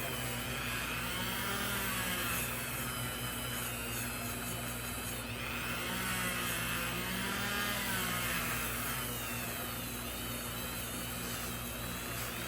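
Small rotary power tool with a wire brush whirring steadily, its pitch slowly sagging and recovering every few seconds as the brush is pressed against the knife and eased off.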